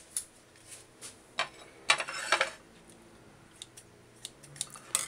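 Kitchen scissors and a plate clinking as okra pods are handled and cut: a quick cluster of louder clatters about two seconds in, then a scatter of light clicks and snips.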